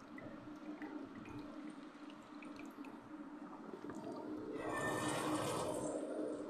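Hot cooling water from a still's condenser draining out of a silicone hose into a plastic bucket: a faint trickle with small drips, splashing louder for about a second and a half near the end. A steady low hum runs underneath.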